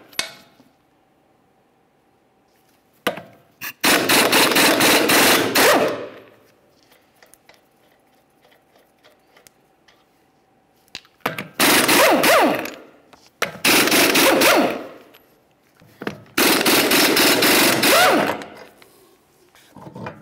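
Air impact wrench hammering lug nuts loose: four rattling bursts, each a second or two long, separated by quiet pauses, with a couple of short trigger blips before the first.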